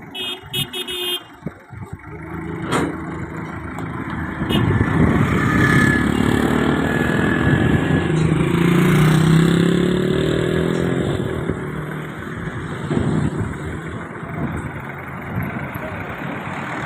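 Large vehicle engine running and revving up and down, its pitch rising and falling, with a few sharp metallic clanks in the first couple of seconds.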